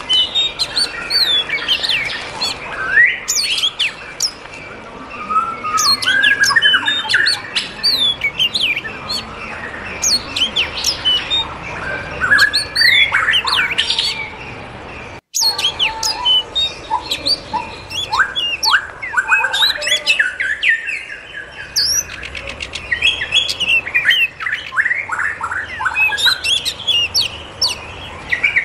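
A flock of aviary birds chirping and squawking together: many short overlapping chirps and quick sweeping calls, broken by a momentary gap about halfway.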